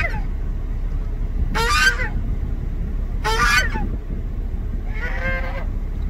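Geese honking: three loud, harsh honks spaced under two seconds apart, then a softer, lower call near the end, over a steady low rumble.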